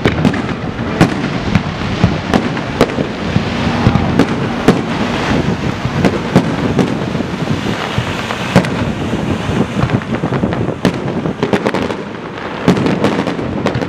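Fireworks display going off in quick succession: many sharp bangs of bursting aerial shells, several a second, over a continuous crackle.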